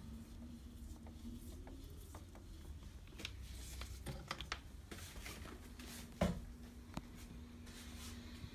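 Light clicks and taps of a flat drive belt being handled on the headstock pulley of a Schaublin 102 lathe, with one louder knock about six seconds in, over a low steady hum.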